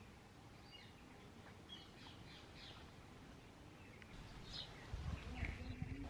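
House sparrows giving short, high, scattered chirps. A louder low rumble starts about five seconds in.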